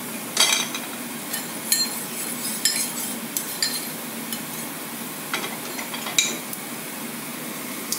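Minced garlic and julienned ginger sizzling in hot oil in a stone-coated wok, a steady hiss. A utensil clicks and scrapes against the pan now and then as they are stirred.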